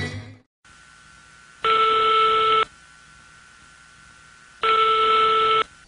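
Telephone call ringing tone: two identical rings about a second long, three seconds apart, heard on the line before the call is answered. The tail of a music track fades out just before them.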